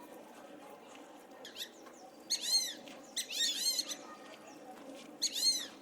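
High-pitched squeaky animal calls: short, quickly rising-and-falling notes in four bursts, the middle two the longest and loudest.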